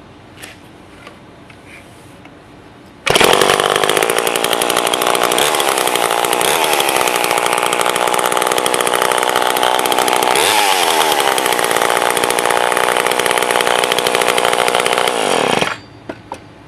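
Vintage Homelite 150 two-stroke chainsaw starting suddenly about three seconds in and running steadily for about twelve seconds, with a brief dip and rise in engine speed near the middle. It then cuts off abruptly. A few light clicks of handling come before and after.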